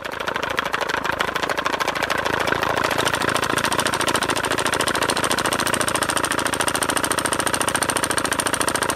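Homemade free-piston Stirling engine made of drink cans running, its balloon diaphragm beating a small metal piece held against it into a fast, even rattle. A thin high whine joins in about three seconds in.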